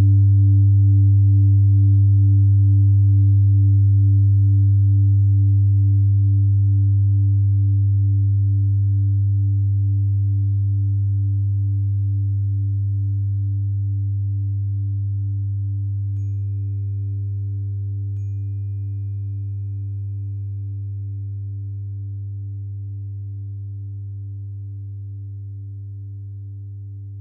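Old singing bowl ringing out as a deep hum with a slow pulsing wobble, fading steadily, blended with a higher steady tone from a 396 Hz tuning fork. About sixteen seconds in, a faint high ring briefly joins.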